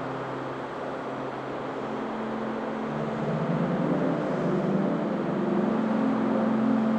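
Ambient sleep soundscape: low, sustained synth drone tones over a soft, steady hiss. The low notes shift about two seconds in and swell gently louder through the second half.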